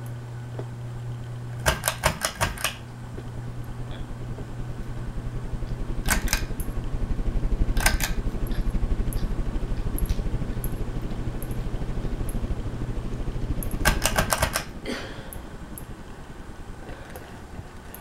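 Tatung Hugger ceiling fan running with a steady electric motor hum. Bursts of rapid clicking come about two seconds in and again near the end, where the hum dies away.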